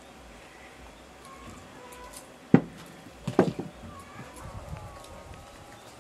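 A single sharp knock about two and a half seconds in, then a quick run of several knocks about a second later, over a low steady background.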